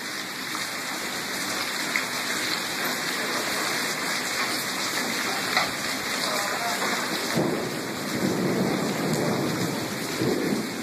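Heavy rain pouring steadily onto pavement in a thunderstorm downpour. It swells louder and deeper from about seven seconds in.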